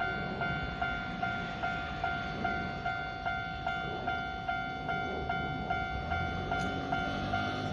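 Japanese railway level-crossing warning bell ringing, about two and a half strikes a second, each strike a bright electronic ding. A train's low rumble grows under it near the end.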